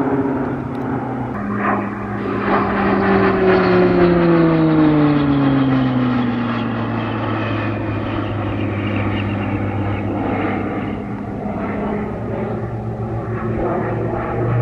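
PZL-130 Orlik turboprop trainers flying past, their propellers droning with the pitch falling over the first several seconds as they pass, then holding steady.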